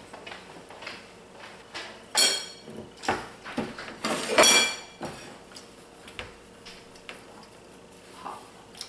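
Eating utensils clinking and scraping against dishware, with two louder ringing clinks about two seconds and four and a half seconds in, and small clicks between.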